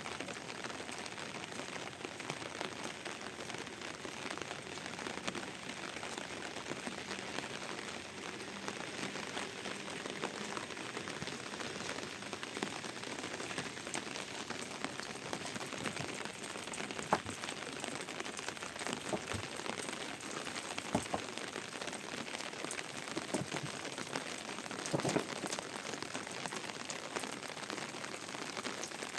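Steady rain falling, with scattered sharper drop hits; a few louder taps stand out in the second half.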